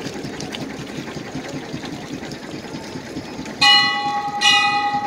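A steady engine drone from a boat motor. About three and a half seconds in, a large bell is struck twice, less than a second apart, and each stroke rings on with several clear tones over the drone.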